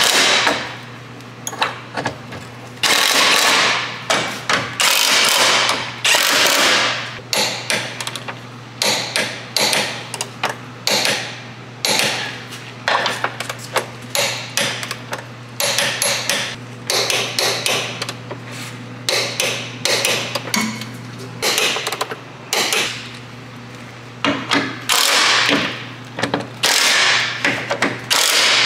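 Cordless impact wrench hammering in repeated bursts of a second or two with short pauses between, running bolts in on a Saab 9-5's subframe bushing bracket.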